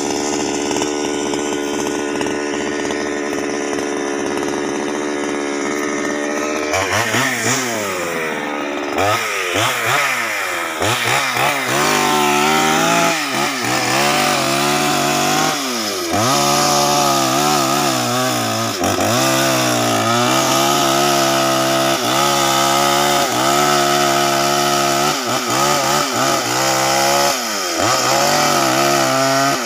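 Two-stroke chainsaw idling, then from about seven seconds in revved up and down several times before running at high speed as it cuts into a tree trunk, its pitch dipping briefly again and again as the chain bites into the wood.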